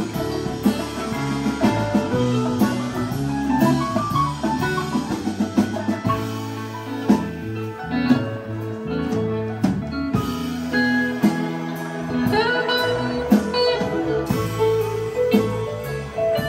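Live band playing an instrumental passage on electric guitar, bass guitar, keyboard, drum kit and congas, with no vocals.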